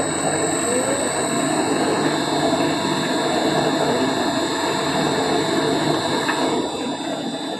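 Steel-wheeled welding rotator (turning rolls) running in reverse under its inverter-driven electric motors, making a steady mechanical rumble with a thin high whine over it. The level eases off a little near the end.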